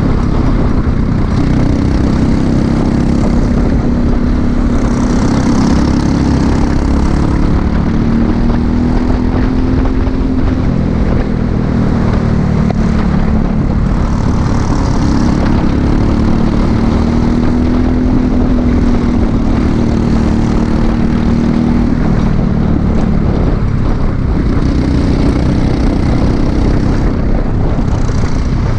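Briggs & Stratton LO206 single-cylinder four-stroke kart engine running at racing speed, its pitch climbing and dropping in long swells as the kart accelerates down the straights and slows for the corners.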